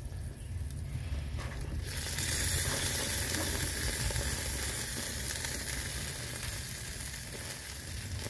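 Burgers and marinated chicken sizzling on a small charcoal-style grill over a sheet of aluminum foil; the hissing sizzle comes in suddenly about two seconds in, over a low rumble.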